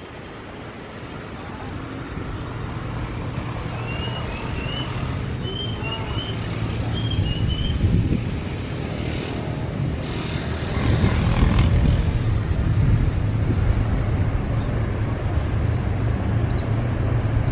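Steady engine rumble that grows gradually louder, with small birds chirping a few times in the middle and faintly near the end.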